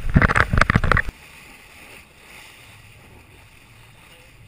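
Wind buffeting and water rushing past an inflatable boat under way, loud and choppy. About a second in it cuts off abruptly to quieter lapping water with a faint low motor hum.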